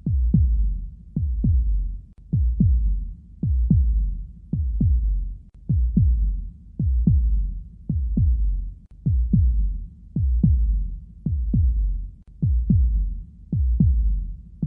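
Heartbeat sound effect: a steady, slow double thump (lub-dub) about once a second, each thud dropping in pitch, over a low rumble.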